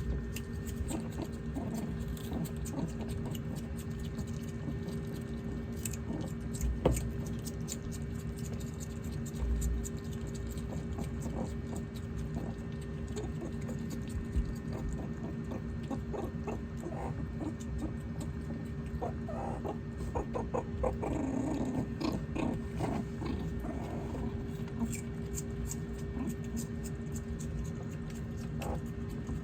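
Pet meerkats moving about with many small clicks and scratches, and a run of short chirping calls about twenty seconds in, over a steady hum.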